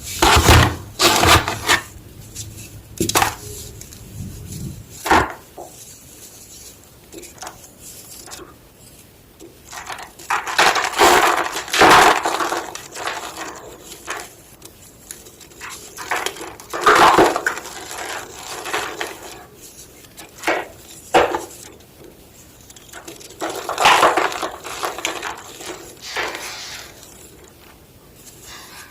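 Homemade gym chalk block being crushed: sharp snaps and several longer crumbling crunches, with short pauses between them.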